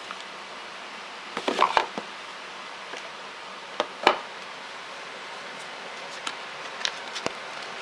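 Cardboard phone box handled on a tabletop: the outer sleeve slides off and the inner box is set down. A cluster of scrapes and knocks comes about a second and a half in, two sharp knocks around four seconds, and a few light taps near the end, all over a steady hiss.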